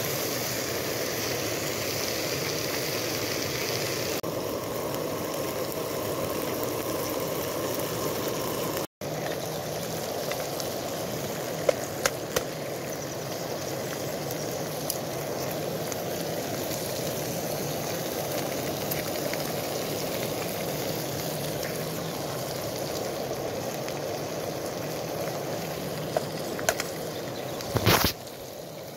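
Bacon frying in a Trangia pan over a gas burner next to a rushing river: a steady hiss and rush throughout. A few sharp clicks partway through and a louder knock near the end come from eggs being handled and cracked into the pan.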